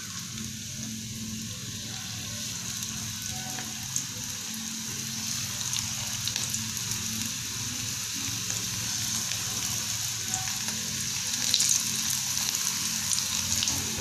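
Hot oil sizzling and bubbling in an aluminium karahi as potato-stuffed flour rolls deep-fry, with a few sharp crackles. The sizzle grows slowly louder as more rolls go into the oil.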